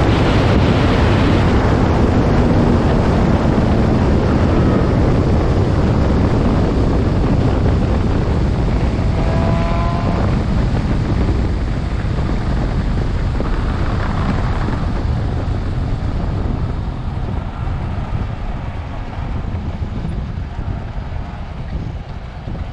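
Wind rush and rolling noise from a Yamaha RD 350 slowing down and pulling off the track with a technical problem, getting steadily quieter as it loses speed. No clear engine note stands out, and there is a brief faint higher tone about ten seconds in.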